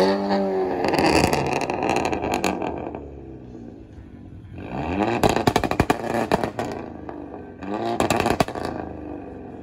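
Volkswagen Golf Mk5 engine revved hard three times as the car pulls away: at the start, about halfway and near the end, each rev a rising note. A quick run of sharp cracks from the exhaust follows the second and third revs.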